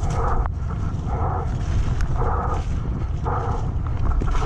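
Heavy wind buffeting and trail rumble from a mountain bike descending a wet, rough downhill trail, picked up by a bike-mounted or helmet camera, with a rasping sound that pulses about once a second.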